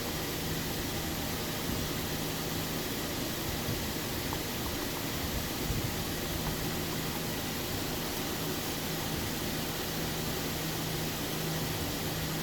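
Steady background hiss with a constant low hum and a few faint clicks.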